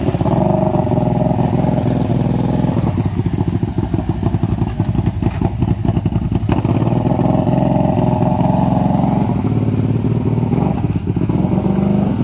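ATV engine running under load, pitch rising and falling a little, as the quad wades through deep creek water, with its wheels churning the water.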